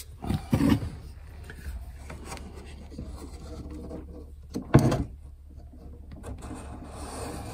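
A wooden scribing block with a pen through it rubbing and scraping along tongue-and-groove wood cladding while a cutting line is marked. There are two short knocks just after the start and a louder wooden knock about five seconds in.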